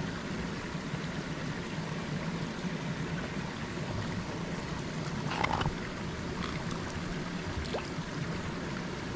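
Steady rush of creek water and small waterfalls, with one brief, sharper sound about five and a half seconds in.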